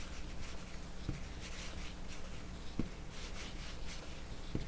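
Soft, irregular rustling swishes of chunky yarn being drawn through stitches on an 8 mm crochet hook while single crocheting, with a few faint taps.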